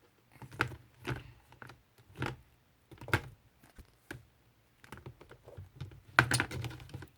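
Small plastic slime containers being handled and set down on a table: a series of light taps and clicks, coming thicker near the end.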